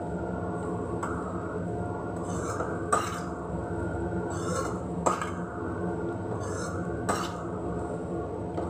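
Steel slotted spoon stirring and scraping vermicelli upma in a frying pan, knocking sharply against the pan three times, about two seconds apart, over a steady low hum.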